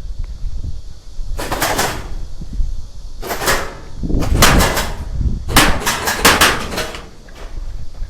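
Airsoft guns firing in four rapid bursts of sharp snaps, the longest burst near the end, over a steady low rumble.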